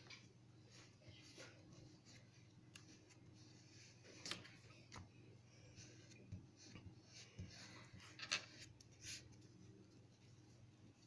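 Faint, irregular scratching and rubbing of oil pastel on paper, with a few louder scrapes about four and eight seconds in.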